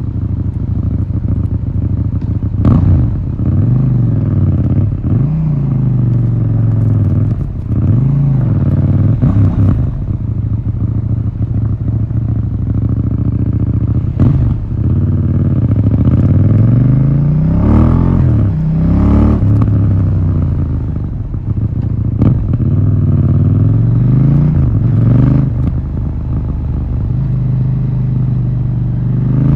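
KTM 790 Duke's 799 cc parallel-twin engine through its stock exhaust, idling and being revved in repeated throttle blips, the pitch rising and falling each time.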